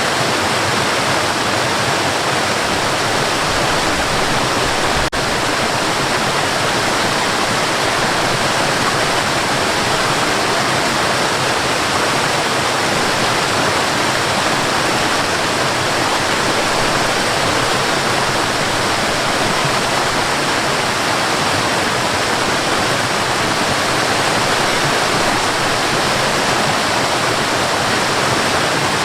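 Forest waterfall pouring steadily: a dense, unbroken rush of falling water.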